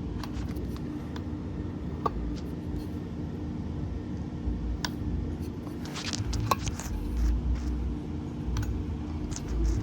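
Steady low mechanical hum with scattered light clicks and taps throughout, a cluster of them a little after six seconds in.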